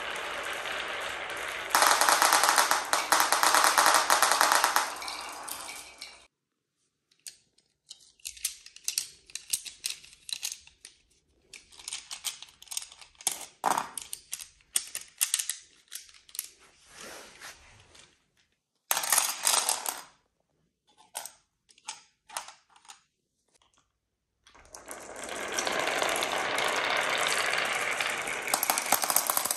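Many marbles rolling and clattering down the grooved wooden tracks of a HABA marble-run slope, clicking against the wood and each other. Dense clatter for the first six seconds, then a stretch of scattered clicks and knocks, and dense clatter again over the last five seconds.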